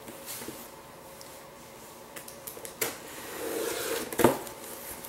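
Cardboard shipping box being opened and handled: scattered scratching and rustling of cardboard, with a sharp click about three seconds in and another a little after four seconds.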